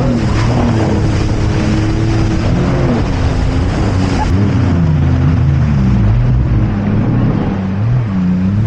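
Jet ski engine running under way, its pitch rising and falling as the throttle changes, over a steady rush of wind and water.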